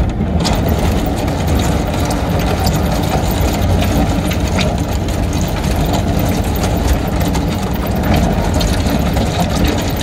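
Kubota SVL95 compact track loader's diesel engine running steadily, with scattered knocks and rattles.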